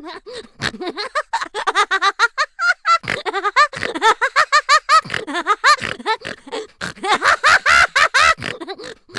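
Cartoon sound effect: a squeaky, high-pitched voice-like chatter, a rapid run of short syllables at several a second, each swooping up and down in pitch.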